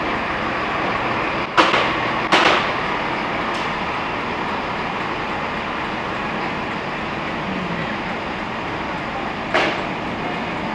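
Railway platform noise beside a standing passenger train: a steady din with three sharp clanks, two close together about a second and a half in and one near the end.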